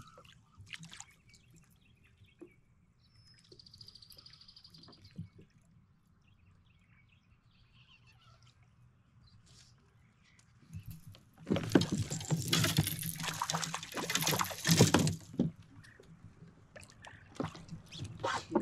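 Water splashing and sloshing against a kayak in a run of strokes lasting about four seconds, after a long quiet stretch with a few faint clicks and taps.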